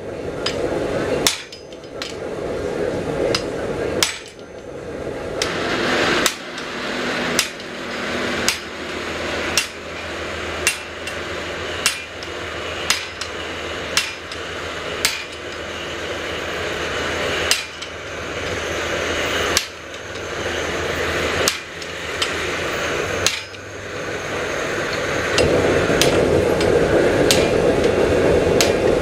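Brass hammer striking the top of a guillotine tool on the anvil, about one blow a second, working a red-hot 5/8-inch square steel bar. The blows stop a few seconds before the end, leaving a steady rushing noise.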